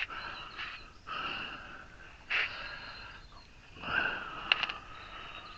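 A person breathing heavily in soft hissy breaths, with a sharper breath about two seconds in, while working. Two small clicks come about four and a half seconds in.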